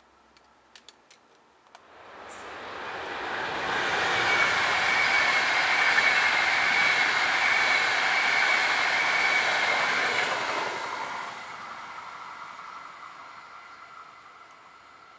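ÖBB Railjet passenger train passing at speed. Its rolling noise swells about two seconds in, carries a steady high whine, and fades away over the last few seconds as the train runs off into the distance.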